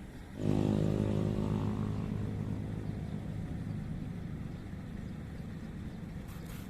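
A small engine running at a steady pitch. It cuts in abruptly about half a second in, loudest at first, then slowly eases off in level.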